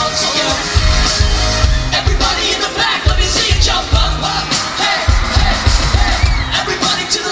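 Live pop band performance: singing over a steady kick-drum beat and bass, loud, with yells from the audience mixed in.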